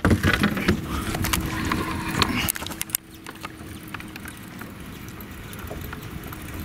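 Clicks and knocks of handling on a fishing boat's deck over a low rumble, with a steady low hum underneath. About three seconds in it drops to a quieter, even rumble.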